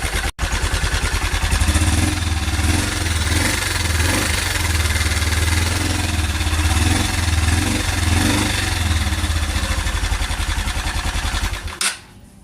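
Honda CG150 Cargo's single-cylinder four-stroke engine idling with a rattle, like a worn timing chain or chain guides. The rattle is traced to a loosened bolt on the camshaft sprocket and a chain guide that the timing chain has scraped. The engine sound cuts off suddenly near the end.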